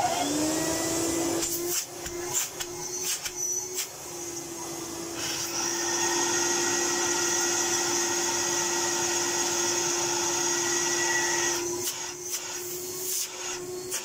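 A Miele S220 canister vacuum's 1000-watt twin-fan motor starts and spins up with a rising whine, then runs steadily. Its tone shifts a few times as the hose is put onto a Hoover Vortex triple-cyclone unit and taken off again. Drawing through the cyclone restricts the airflow, so the motor works harder and its pitch rises.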